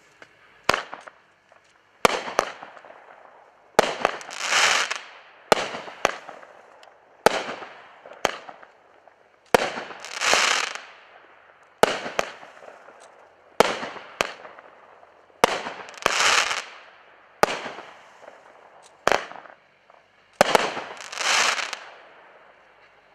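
A 12-shot consumer firework cake firing. A sharp report comes roughly every one and a half to two seconds. Each report is followed by a swelling sizzle as the gold willow stars with strobing tips burst and burn.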